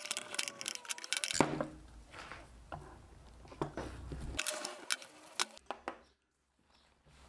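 Rapid light clicking of a socket on a brake caliper bolt, then scattered knocks and clatter as the hand tools and the metal caliper are handled and set down on a workbench.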